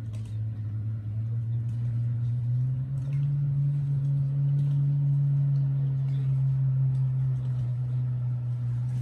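A low, steady engine or motor hum that rises a little in pitch and grows louder about three seconds in.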